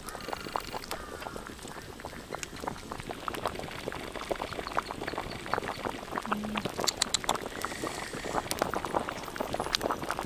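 Fish soup boiling hard in a wok, with a steady crackle of popping bubbles that grows busier in the second half.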